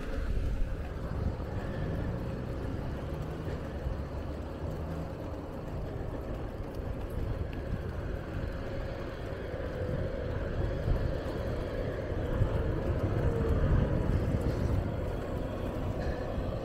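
Steady low rumble of wind on the microphone and bicycle tyres on pavement while riding along a city street, with light car traffic. It grows louder for a couple of seconds in the second half.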